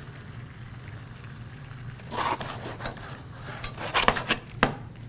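A utensil scraping and clicking a few times against a sauté pan as butter and chopped sage are worked into the sauce, starting about two seconds in, over a low steady hum.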